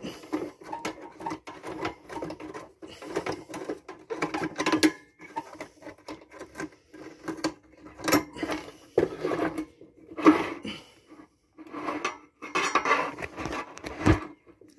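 A hand screwdriver working small, rusted screws out of a metal bee smoker's bellows: irregular scraping, clicking and light metallic rattling as the tool bites and the smoker is handled.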